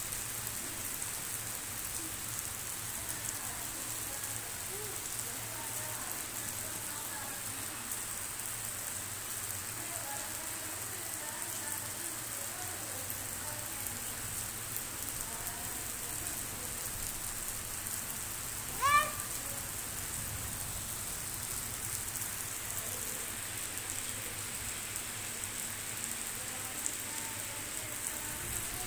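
Steady rain falling on a wet concrete yard and brick paving, an even hiss. One short, loud pitched call stands out about two-thirds of the way through.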